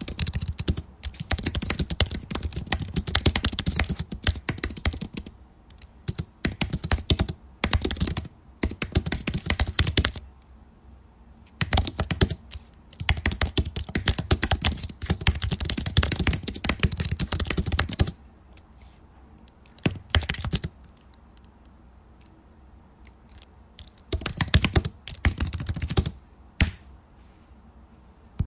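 Computer keyboard typing in fast runs of keystrokes: a long stretch of continuous typing, a brief pause about ten seconds in, another long run, then shorter bursts separated by pauses of a few seconds.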